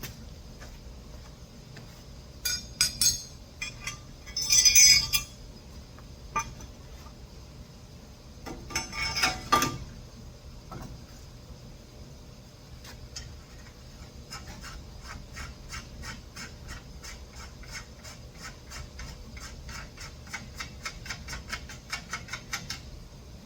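Metal bicycle parts clinking and clanking in three short bursts, then a fast, even ticking of about four clicks a second that runs for several seconds before stopping near the end.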